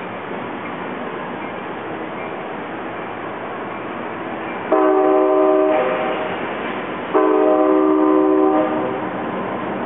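Double-deck passenger cars rumbling steadily past close by, with a multi-tone locomotive horn sounding two blasts of about a second and a half each near the middle of the stretch.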